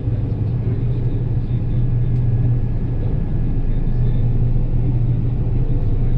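John Deere 9770 combine running steadily under harvest load, a loud, even low diesel drone with no change in speed.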